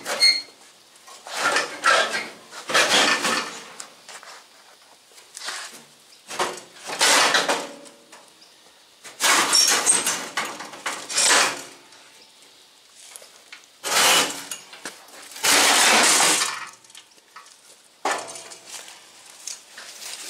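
Steel firewall panel of a 1930 Ford Model A cab being wrenched and levered free, with sheet metal clanging, scraping and rattling in about ten rough bursts a second or two apart.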